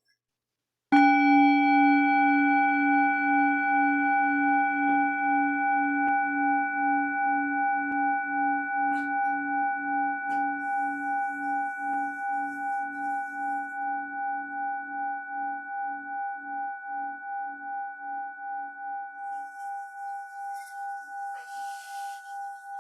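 A singing bowl struck once about a second in, ringing on several tones at once with a slow, even wavering pulse as it fades over some twenty seconds.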